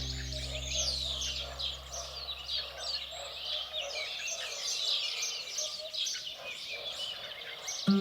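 Many small songbirds chirping and calling at once, short overlapping chirps and quick sweeping notes. A held music chord fades out during the first few seconds.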